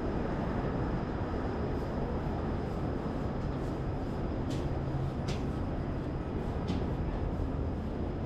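Steady low rumble of heavy city vehicle traffic, with three brief sharp clicks in the second half.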